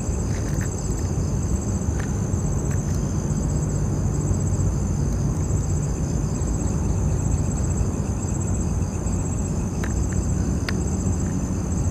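Crickets chirping steadily in a high, pulsing trill over a constant low rumble, with a few faint clicks.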